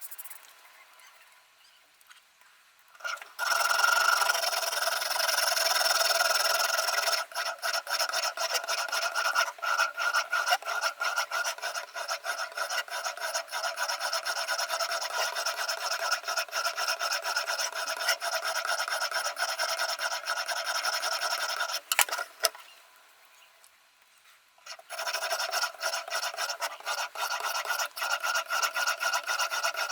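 Stone of a Ruixin Pro RX-008 guided knife sharpener rasping along the edge of a VG10 Damascus chef knife. It starts about three seconds in as a steady scrape, then turns into rapid back-and-forth strokes. It stops for about two seconds a little past two-thirds of the way through, then carries on stroking.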